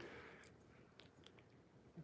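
Near silence: room tone with a few faint soft clicks.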